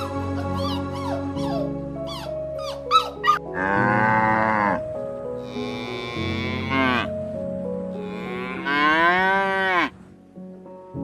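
Cow mooing three times in long drawn-out calls, the last one falling in pitch, after a few short high squeaks at the start, over background music with steady held notes.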